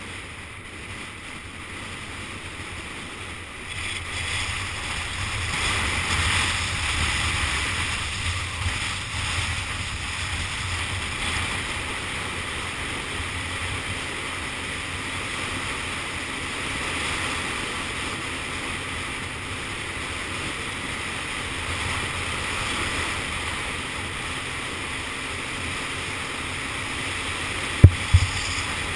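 Wind rushing over the microphone with road noise from a scooter in motion, swelling about four seconds in as it picks up speed and then holding steady. Near the end come two sharp thumps close together.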